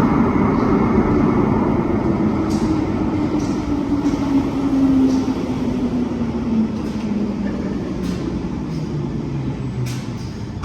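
A London Underground 1972 Stock train on the Bakerloo line slowing as it pulls into a station. Its running rumble carries a whine that falls steadily in pitch as the train decelerates, with a few sharp clicks along the way.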